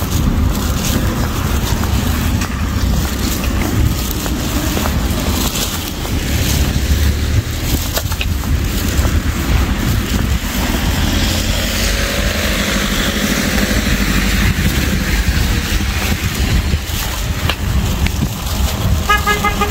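Wind buffeting a handheld phone's microphone while walking, a steady low rumble, with the hiss of traffic on a wet road swelling and fading around the middle. A short steady tone sounds near the end.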